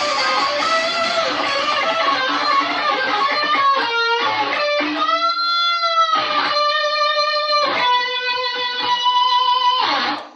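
Electric guitar music: dense strumming, then a run of separate chords, each left to ring, ending suddenly.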